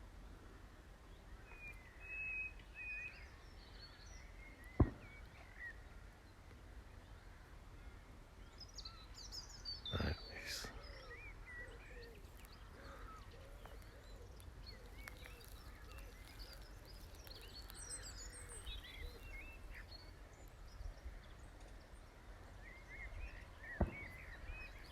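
Nightingale singing in sparse, scattered phrases of whistles and chirps, including a held whistled note a couple of seconds in. A low wind rumble runs underneath, and there are three sharp clicks: one about five seconds in, one around ten seconds, and one near the end.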